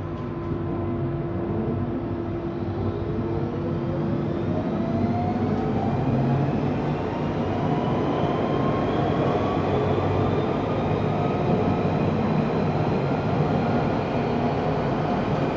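London Underground Central line train accelerating, its traction motors whining in several tones that rise slowly in pitch as it gathers speed, over a steady running rumble.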